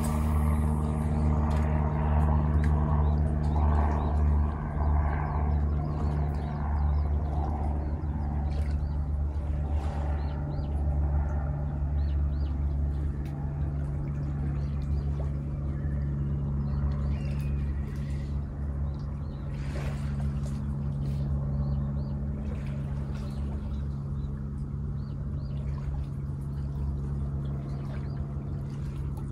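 Steady low engine drone, with water splashing now and then.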